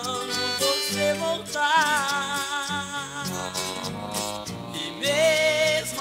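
Recorded Brazilian música caipira: a country song with a wavering melody line over a steady guitar and bass accompaniment.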